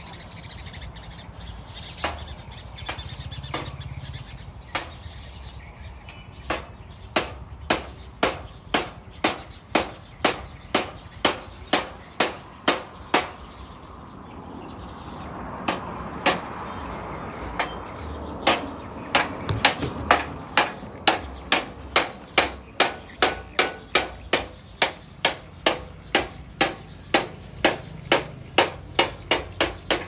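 Repeated sharp knocks at a steady beat of about two a second, stopping for a couple of seconds in the middle and then starting again.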